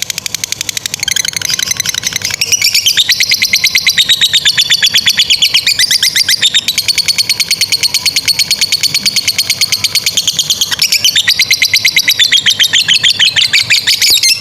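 Lovebird singing a long, unbroken 'ngekek': a rapid run of high, shrill chattering notes, getting louder about two seconds in and cutting off suddenly at the end.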